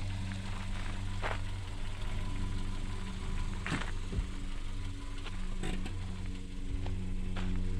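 Kia Picanto hatchback's engine idling steadily, with a few short clicks over the hum.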